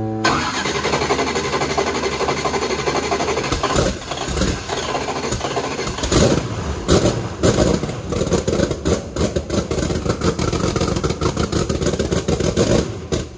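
Steve Morris 540-cubic-inch twin-turbo big-block V8 catching on its first start and running unevenly through short open pipes off the turbos. The throttle is blipped by hand, giving sharp spikes in level, and the engine shuts off near the end.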